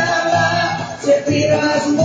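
Loud Greek folk dance music from a DJ's sound system, a melody over a steady beat.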